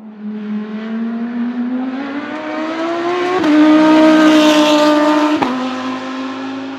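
Audi R8 race car's engine accelerating past on a track: the pitch climbs, then drops at two upshifts, a little over three seconds in and about five and a half seconds in. It is loudest as the car goes by, then fades.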